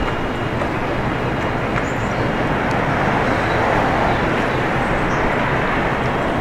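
Electric commuter train running past close by: a loud, steady rush of wheel and running noise.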